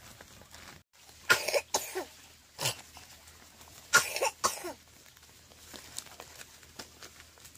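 A person coughing in short harsh bouts: a run of coughs about a second in, a single cough a little later, and two more, the loudest, around four seconds in.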